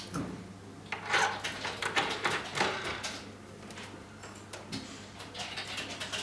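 Handling sounds as a model-airplane propeller is fitted onto its motor shaft at the cowling: a scatter of light clicks and knocks with some rubbing, a few stronger ones in the first three seconds.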